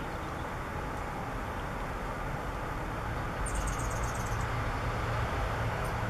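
Steady low background rumble, a little louder from about halfway through, with a quick run of high, thin chirps lasting about a second a little past the middle.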